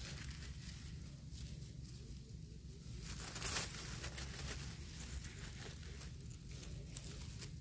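Faint rustling and crackling of dry leaf litter and undergrowth being disturbed, with scattered small crackles and a louder rustle about three and a half seconds in.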